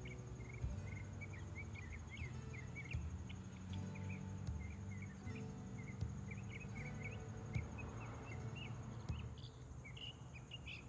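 Birds chirping in quick, short calls over a steady high insect trill, like crickets, with soft background music underneath.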